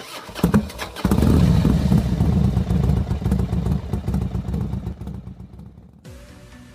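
A few clattering knocks, then a motor engine running loudly, its sound gradually fading, until it cuts off abruptly about six seconds in and background music starts.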